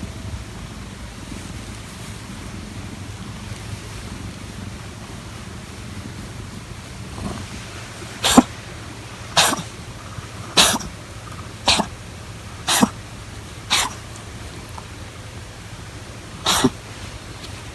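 Domestic cat coughing: a run of six short, sharp coughs about one a second starting about halfway in, then one more a few seconds later. It is the coughing fit this cat always has after purring too much.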